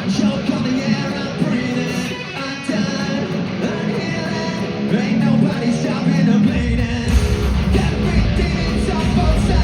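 Rock band playing live, with singing over distorted electric guitars; heavy bass and drums come in hard about two-thirds of the way through.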